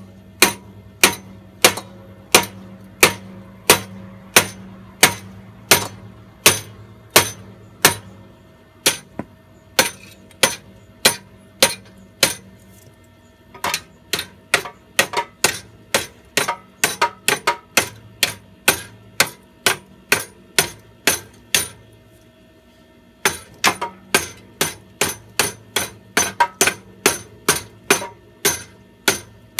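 A 32-ounce hammer repeatedly striking the rusted-out muffler on a Kohler K341 engine to knock it off its exhaust pipe, metal on metal. The blows come about one and a half a second, stop briefly twice, and come quicker after the first pause.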